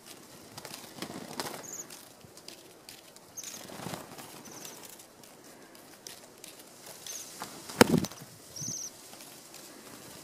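Bohemian waxwings giving short, high trilling calls about six times, with soft wing flutters and rustling as they jostle on the hand. A single sharp tap about eight seconds in is the loudest sound.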